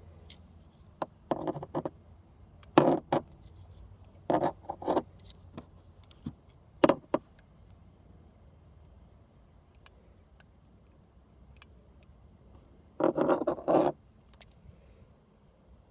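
Wires and a small hand tool being handled while a connector's wires are measured and trimmed: a few short scrapes and clicks, then a longer, rattly scraping about thirteen seconds in.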